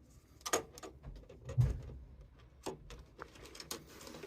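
Irregular light clicks and knocks of small parts being handled, with a duller low thump about one and a half seconds in.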